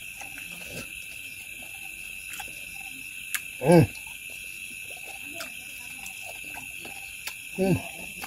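Mouth clicks and smacks of someone eating with their fingers and chewing, with two short, loud voice-like grunts that fall in pitch, about four seconds in and near the end, over a steady high whine.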